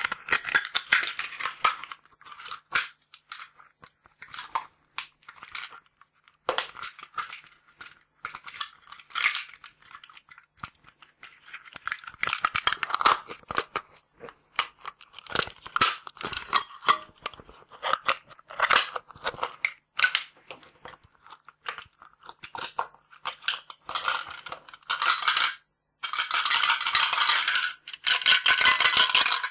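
A metal can being crumpled and squeezed close to a binaural microphone: irregular sharp crackles and crinkles of thin metal with short pauses between, turning into dense, continuous crinkling in the last few seconds.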